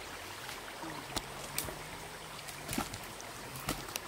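Steady rush of a flowing stream, with a few sharp snaps and knocks of wood as branches are handled. A faint low hum comes in about a second in and fades near the end.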